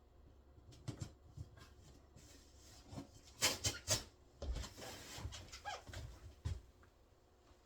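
Cardboard and tape being handled as a cardboard fireplace is taped together: scattered rustles and knocks, with a few sharp, louder sounds about three and a half to four seconds in.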